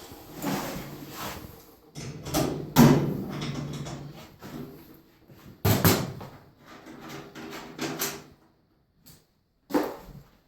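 Irregular knocks, clunks and scraping from handling the top-load washing machine's cabinet and lid while reinforcement brackets are fitted, the loudest knock about three seconds in.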